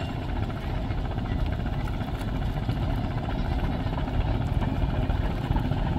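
Steady low rumble of a large river passenger launch's diesel engines carrying across the water as the vessel comes in to the landing.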